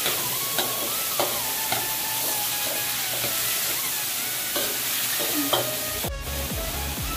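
Diced chicken, squid and vegetables sizzling in oil in a wok while a metal ladle stirs them, scraping and clinking against the pan several times.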